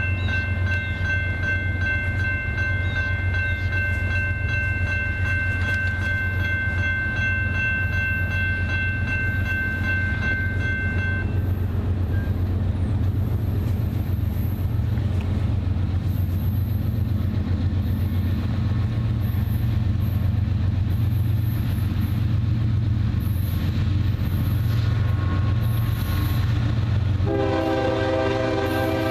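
Grade-crossing warning bell ringing steadily over a constant low rumble, then falling silent about eleven seconds in. Near the end the approaching Canadian National ES44DC locomotive sounds its air horn, a chord in short blasts.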